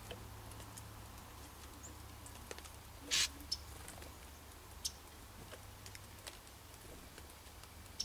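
A chickadee at a wooden seed feeder: a brief flutter about three seconds in as it lands, then scattered light taps and clicks as it pecks at the seed. A low steady hum runs underneath.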